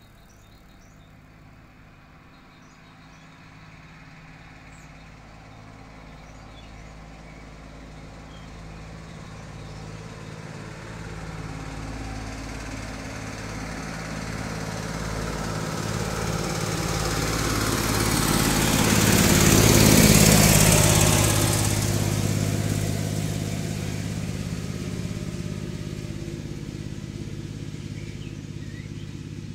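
A motor engine approaches and passes. It grows steadily louder for about twenty seconds, is loudest about twenty seconds in, then fades.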